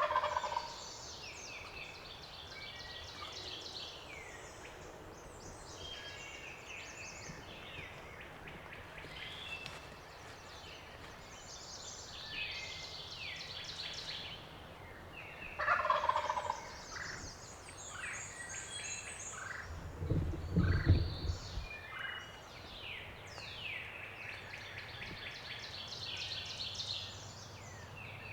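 Wild turkey gobbling twice, once at the start and again about sixteen seconds in, over steady songbird singing. A brief low thud or rumble about twenty seconds in is the loudest sound.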